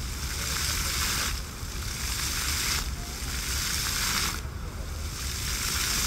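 Park fountain jets splashing, a steady hiss of falling water whose spray swells and eases in turn about every second and a half.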